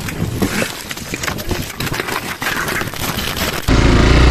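Loose stones crunching and clattering underfoot on rocky ground, a quick run of sharp clicks. About three and a half seconds in it cuts suddenly to a Hero XPulse 200's single-cylinder engine running steadily, louder than the rock sounds.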